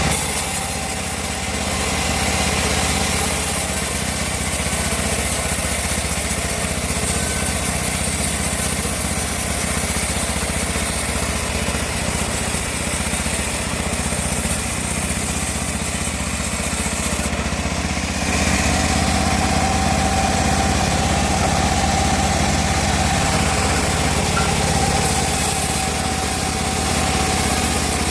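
Homemade band sawmill running with a steady drone as its blade cuts through a teak log; a higher steady whine joins in a little past halfway.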